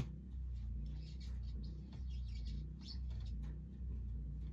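A steady low hum that swells and fades about once a second, with faint light clicks and rustles over it. A sharp click comes right at the start.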